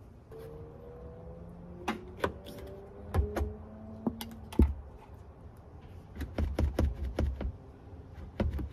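Clicks and knocks of plastic interior trim panels and a small hand tool being handled, with a quick run of small irregular clicks about six seconds in.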